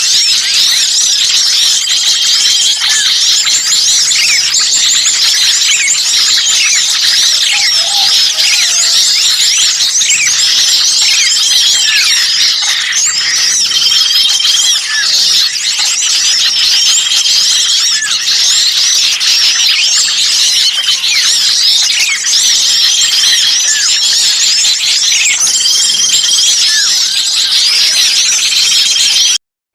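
Dense chorus of small songbirds calling noisily and agitatedly: a mass of rapid chirps and squeaky up-and-down notes with a level whistled note repeated every few seconds. This is a looped bird-trapping lure recording of small birds in an uproar. The sound cuts out for a moment near the end.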